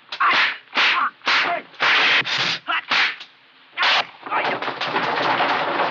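Kung fu film fight sound effects: a rapid string of sharp whooshes and hits as blows are traded, coming thicker near the end.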